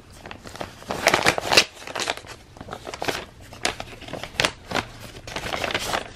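Paper rustling and crinkling as a taped envelope is opened by hand and a folded sheet is pulled out and unfolded: a run of irregular rustles, loudest about a second in.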